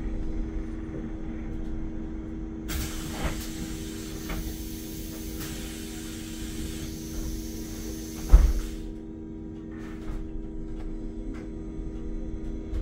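Solaris Urbino 9 IV LE Electric bus, heard from inside: a steady electric hum, then a hiss of compressed air lasting about six seconds, with one heavy thump about eight seconds in.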